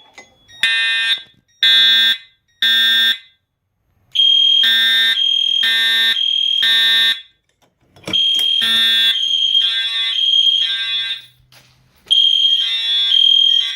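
Fire alarm system sounding after a manual pull station is pulled. It opens with three short, evenly spaced horn-like blasts. From about four seconds in, a steady high-pitched alarm tone joins them, in stretches of about three seconds with short gaps.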